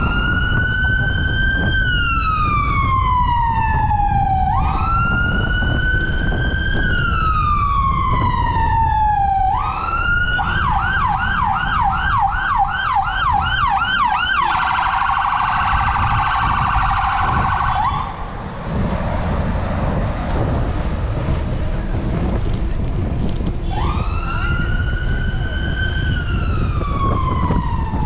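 Emergency vehicle siren going through its modes. First come two long wails that rise and slowly fall, then a fast yelp at about three cycles a second, then a very rapid warble. The warble stops about 18 seconds in, and the wail starts again about six seconds later. A steady low rumble of wind and road traffic runs underneath.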